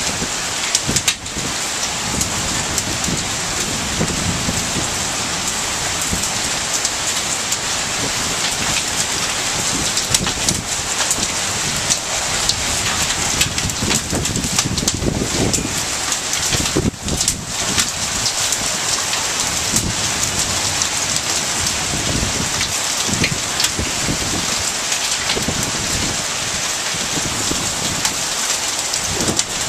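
Heavy rain pouring down in a downpour, a dense, steady hiss of water on surfaces.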